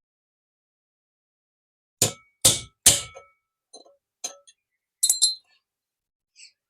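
Three sharp metal knocks about half a second apart, each with a brief ring, then lighter clicks and clinks of small metal parts: knocking the worn bush out of an exhaust fan motor's end cover.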